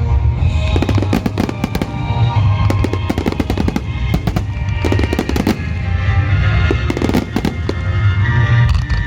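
Fireworks bursting and crackling, many sharp reports in quick succession with a deep rumble, over music playing.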